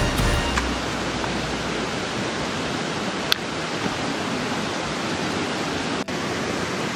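Steady rush of a mountain creek running high with early-summer snowmelt, with one sharp click a little before halfway.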